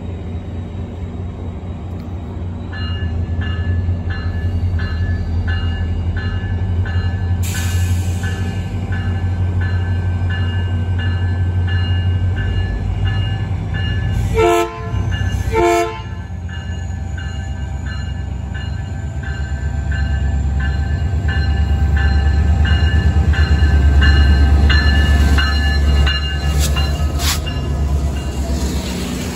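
Metrolink diesel locomotive rolling slowly into a station, its engine running with a steady low drone while its bell rings about twice a second. Two short horn blasts sound about halfway through, and the engine grows louder as the locomotive passes close by near the end.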